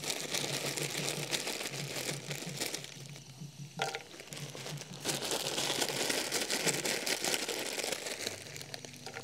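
Hot oil with cumin and mustard seeds sizzling and crackling in a non-stick frying pan as dried urad dal and pumpkin dumplings (badi) are dropped in by hand. The sizzle eases a little, then flares up again about four seconds in as a second handful goes in.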